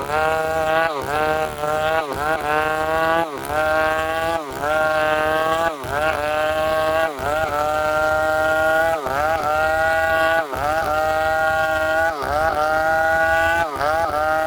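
Chainsaw running under load while cutting timber, its engine pitch dipping sharply and recovering about once a second as the chain bites into the wood.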